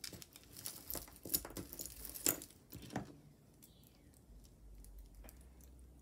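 Tangled metal jewelry chains, pendants and an earring clinking and rustling as they are pulled apart from a pile by hand: a quick run of small clicks for about the first three seconds, then only a few scattered ones.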